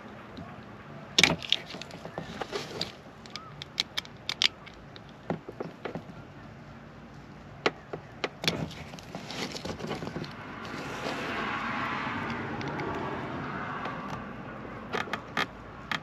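Irregular sharp clicks and snaps of hand cutters and plastic parts as the rubber wiring grommet is cut open for the trailer harness. A smooth rushing sound swells and fades about two-thirds of the way through.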